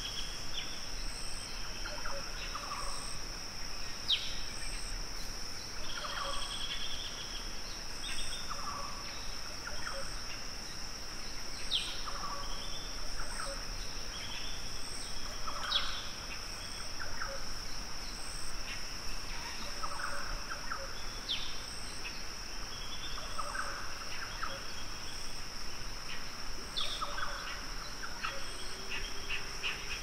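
Bush soundscape: a steady high-pitched insect drone with a short high chirp about once a second, while birds call at intervals, several with quick down-sweeping notes.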